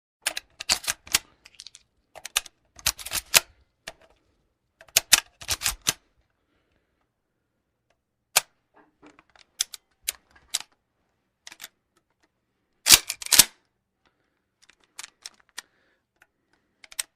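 Winchester .22 being reloaded: bursts of sharp metallic clicks and clacks as cartridges go in and the action is worked, three quick clusters at first, then scattered single clicks, with the loudest double clack about three-quarters of the way through.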